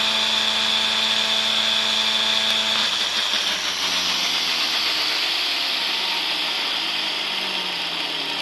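Cordless electric brush cutter's motor running at its single full speed with a high whine, then let go about three seconds in and spinning down, its pitch falling slowly as it coasts.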